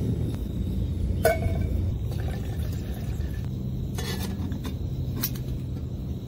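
Metal clinks of a stainless steel camping pot being set on a canister gas stove: a sharp ringing clink about a second in, and lighter ones near four and five seconds. Under them runs a low steady rush, which fits the lit burner.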